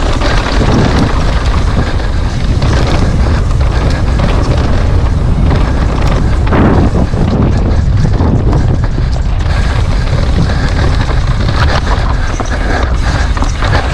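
Wind buffeting a rider-mounted camera's microphone on a fast downhill mountain bike descent, a loud, steady low rumble with constant rattling and clicking from the bike and tyres over rough trail.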